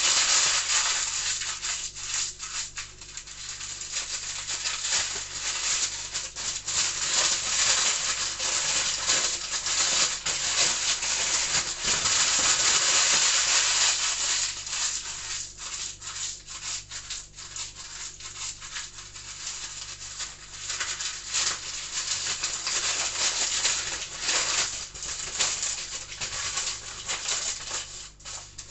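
Electric kitchen appliance running, mixing dough ingredients with a loud rattling, scraping churn over a steady motor hum; the noise swells and eases as the mix tumbles, loudest around the middle.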